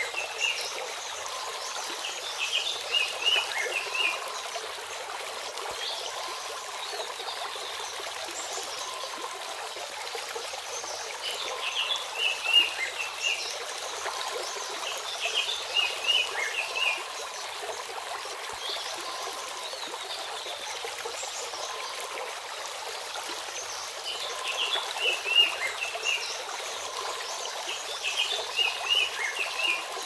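Shallow forest stream running over rocks in a steady rush of water. A bird sings short runs of high chirps three times: near the start, around the middle and near the end.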